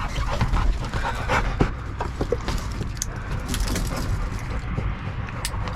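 Dog panting, with a few knocks and handling noises over a low rumble.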